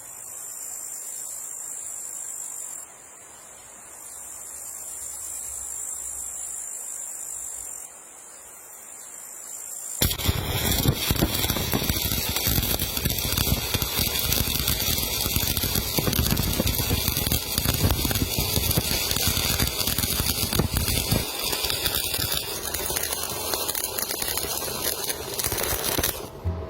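Electric arc welding: a loud, steady crackle and sizzle of the welding arc that starts about ten seconds in. Before it there is only a fainter high hiss.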